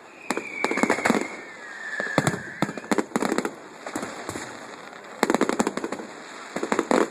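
Fireworks going off: clusters of rapid sharp cracks, with a thin whistle falling slightly in pitch through the first couple of seconds.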